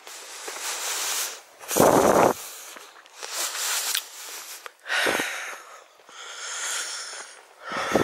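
A woman's heavy, labored breathing while walking uphill, a breath in or out about every second, the loudest about two seconds in. She puts the labored breathing down to respiratory problems left over from years of smoking.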